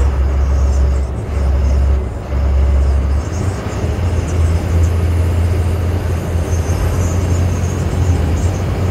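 Bus engine and road noise heard from inside the driver's cabin: a loud, steady low drone that dips briefly twice in the first three seconds, with tyre and wind noise over it.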